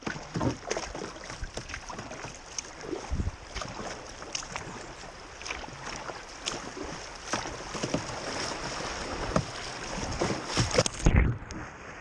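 River water rushing and splashing against a kayak's hull, heard from a camera on the bow deck: a steady rush broken by many short, irregular splashes. The splashing is loudest near the end, as the kayak runs through rough water and waves wash over the bow.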